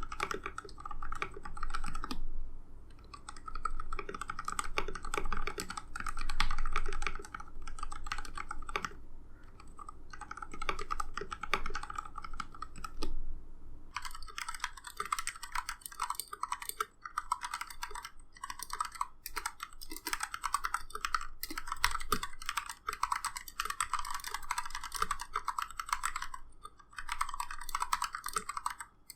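Typing on a KPRepublic YC66 mechanical keyboard with lubed Gateron Milky Black linear switches and lubed stabilizers. Keystrokes come in a fast, continuous patter with a few brief pauses.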